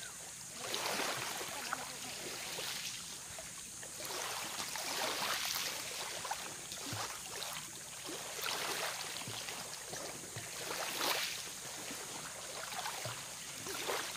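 Small waves lapping at a shallow shore, a soft wash swelling and fading every two or three seconds.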